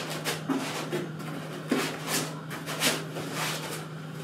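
Polystyrene foam packing scraping and rustling against the resin printer as it is pulled out of the block, in a handful of short scrapes, over a steady low hum.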